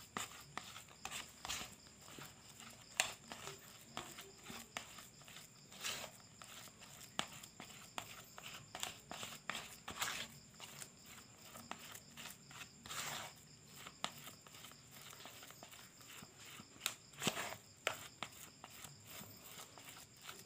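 A plastic spoon scraping and pressing against the bottom of a plastic basin, mashing bait paste and salted egg yolk smooth into a dry bait mix: faint, irregular scrapes and taps, a few louder ones among them.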